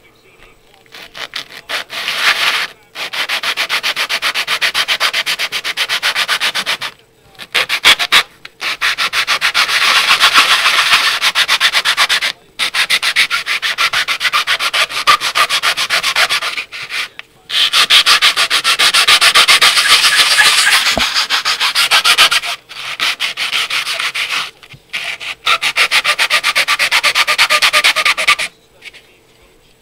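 Plastic model-kit wall section sanded on 220-grit sandpaper, rubbed back and forth in quick, loud strokes. The rubbing comes in runs of a few seconds with short pauses between them and stops shortly before the end.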